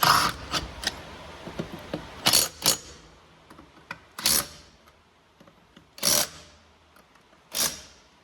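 Short sharp bursts of mechanical tool noise from work on a car's wheels, six in all, each well under half a second long and spaced one to two seconds apart.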